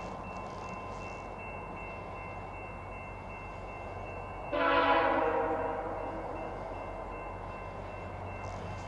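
A diesel locomotive's horn sounds one short blast of several tones together about halfway through, then dies away. Under it runs the steady low rumble of an approaching train.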